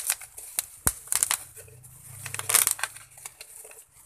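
Plastic and foam packaging rustling and crackling as it is unwrapped, with sharp clicks and bursts of crinkling, loudest about a second in and again past halfway.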